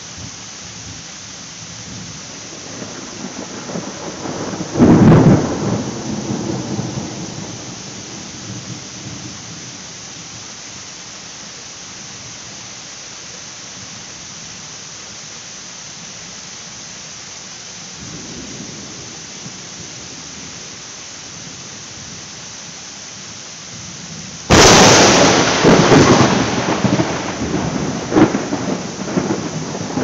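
Heavy rain pouring steadily in a thunderstorm, with two claps of thunder. The first is a crack about five seconds in that rumbles away over a few seconds. A louder, sudden crack comes near the end, followed by rolling rumbles.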